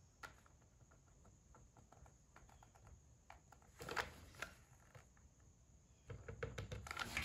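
Faint small clicks and scratches of hand work with a hot glue gun and a thin wooden strip over a cup of wood chunks. There is a louder rustle about four seconds in and more continuous handling noise near the end.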